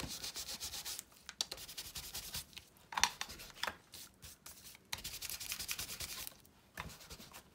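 Ink blending tool loaded with Distress Oxide ink rubbed quickly back and forth over the edges of a small cardstock piece, inking its sides: a fast scratchy rubbing in several spells with short pauses between them.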